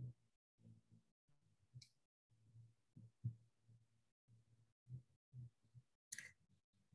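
Near silence: faint room tone over a video call.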